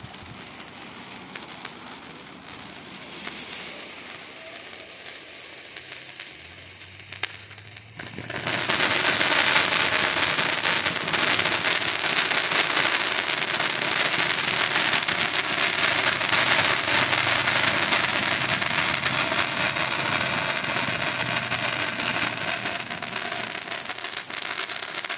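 Small consumer firework going off with a dense, continuous crackling. It starts suddenly about eight seconds in and keeps going, loud and steady, for about seventeen seconds. Before that there is only a quieter hiss with faint crackles.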